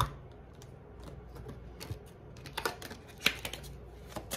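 A deck of tarot cards being handled and shuffled in the hands: a few separate light clicks and taps, the loudest about three seconds in.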